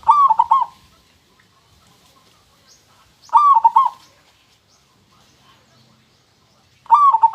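Zebra dove (perkutut) cooing: three short phrases of ringing notes, about three and a half seconds apart.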